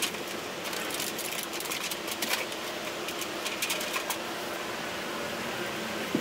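Scratchy rustling and crackling in quick clusters as resin-wet fiberglass cloth and plastic sheeting are handled and pressed into place with gloved hands, over a steady hiss. The rustling stops about four seconds in, leaving the hiss.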